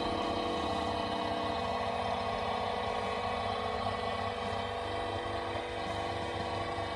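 Vacuum pump running steadily, evacuating a sealed vacuum chamber.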